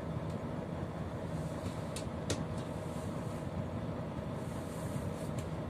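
Volvo 460's diesel engine idling steadily, heard from inside the cab. A few sharp clicks a little after two seconds in come from the dashboard's traction-control switch being held and released.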